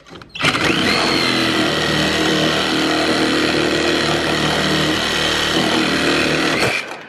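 Battery-powered saw running steadily under load, cutting through a truck-box mounting bolt. It spins up with a short rising whine about half a second in and cuts off suddenly near the end.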